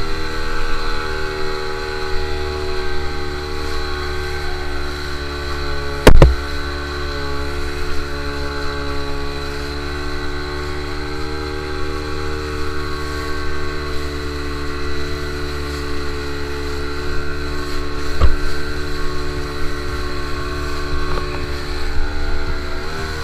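Motorboat engine running steadily at an even pitch, with a sharp loud knock about six seconds in and a lighter one near the end.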